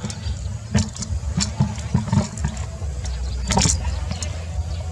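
Camera handling noise: a handful of knocks and rustles as the camera is moved and fingered, the loudest near the end, over a steady low rumble.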